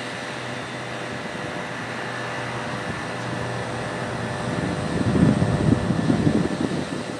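Distant C-130 Hercules-type four-engine turboprop droning in flight, a steady hum with faint whining tones, swelling into a louder rumble about five seconds in.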